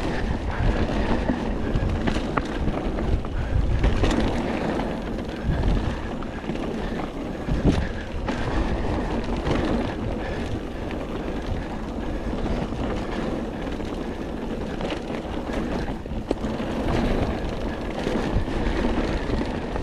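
Mountain bike rolling fast down a rough dirt trail: steady tyre rumble and frame rattle, with wind noise on the microphone and a few sharper knocks over bumps.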